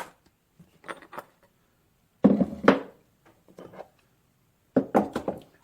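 Metal clunks and knocks as a rusty Diacro spring winder is handled and its parts are moved, with short ringing after the louder knocks.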